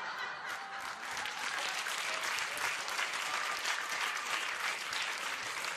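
Audience applause: many hands clapping steadily after a comedy punchline.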